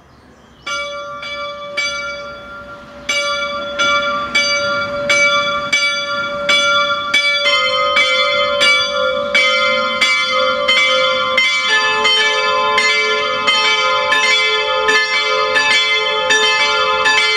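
Full peal of five Rincker-cast bronze church bells swinging in a small campanile, starting up: the first bell begins striking about a second in, and further bells join one after another, each lower in pitch. By the end four bells are ringing together.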